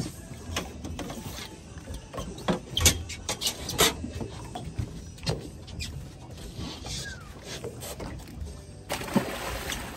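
Steady low rumble aboard a fishing boat on open water, broken by a few sharp clicks and knocks from rods, reels and gear on deck.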